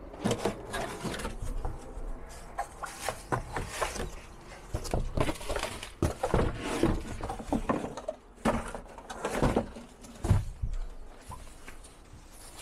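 Irregular rustling, scraping and short knocks of a folding solar panel bag being unpacked and handled.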